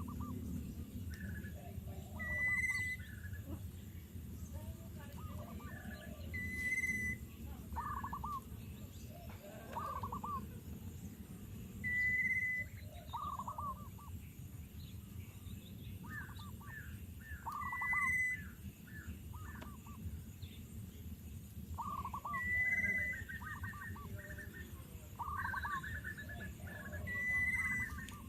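Birds calling: a short, clear high note repeated about every four to five seconds, with quick runs of lower chirps in between, over a steady low background rumble.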